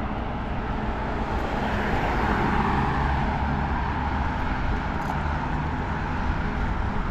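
Road traffic noise: cars passing on a city road, one swelling louder about two to three seconds in, over a steady low rumble of wind on a moving bicycle-mounted microphone.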